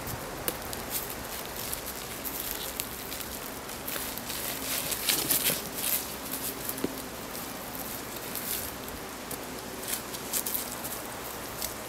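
Scraping and rustling of someone climbing a birch tree: hands and shoes rubbing on the bark and the branches shaking their leaves, heard as small irregular crackles that are busiest around the middle.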